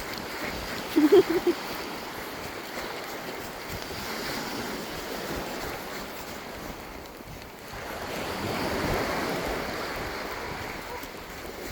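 Sea waves washing on the shore, with wind buffeting the microphone; one wave swells up louder about eight seconds in. About a second in there is a brief, loud pitched sound, a few short notes.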